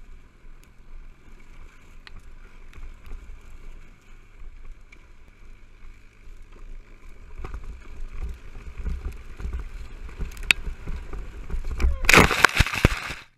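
A sled dragging and bumping over grass behind a towing quad bike, heard from a helmet-mounted camera as a low rumble and wind noise that grows louder as it speeds up. About twelve seconds in comes a loud burst of scraping and knocks as the rider tumbles off, and then it cuts off suddenly.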